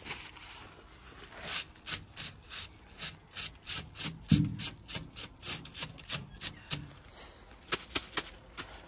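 A cloth wiping ash off the metal top of a hot tin can, in quick back-and-forth scrubbing strokes about two or three a second, with a dull knock on the tin about four seconds in and a few last wipes near the end.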